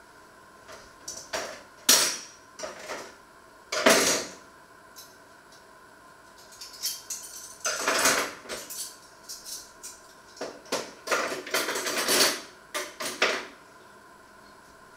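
Metal cutlery and dishes clattering as they are handled and set down, in two spells of knocks and rattles. The sharpest knocks come about two and four seconds in.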